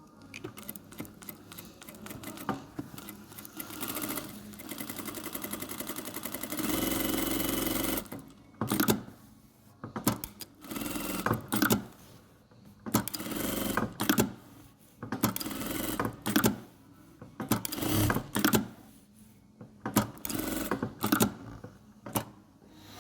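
Household sewing machine stitching: a few seconds of fast continuous running, then a series of short runs of about a second each with pauses between them. Its reverse-stitch lever mechanism is freshly adjusted, and it runs without knocking.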